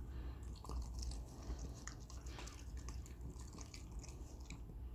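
A West Highland White Terrier chewing a soft, juicy strawberry from a hand: a faint, continual run of small wet smacks and mouth clicks.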